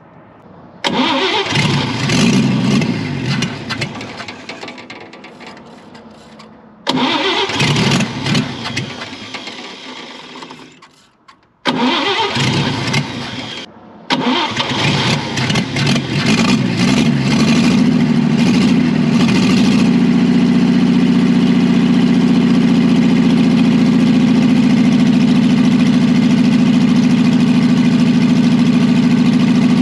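Chevrolet Blue Flame inline-six being cranked on the starter in three bursts before it catches about 14 seconds in. It runs unevenly at first, then settles into a steady idle.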